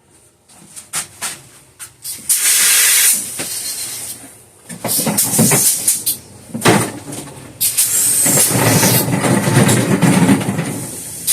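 Air hissing in irregular spurts from a cart tire's valve stem as an air chuck is pressed on without seating fully, letting air escape. A few light knocks come before the hissing starts.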